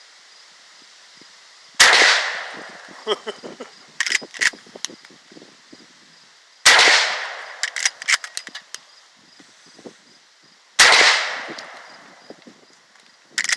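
Three gunshots about four to five seconds apart, each loud crack trailing off in echo, with smaller clicks and clatter after the shots.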